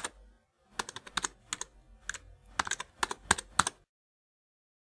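Computer keyboard typing: quick, irregular key clicks in short runs, cutting off abruptly near the end.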